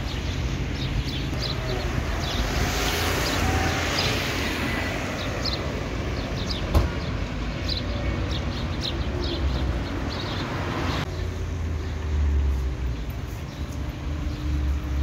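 Low, steady vehicle rumble with traffic noise. A swell of noise rises and fades about two to five seconds in, like a vehicle passing, and there is a single sharp click about seven seconds in.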